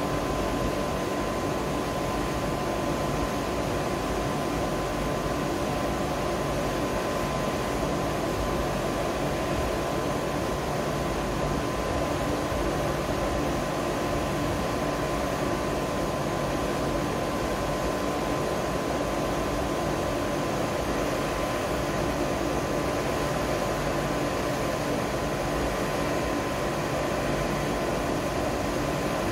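KTX-1 high-speed train standing at the platform with its cooling fans and air conditioning running: a steady whirring with a constant high whine.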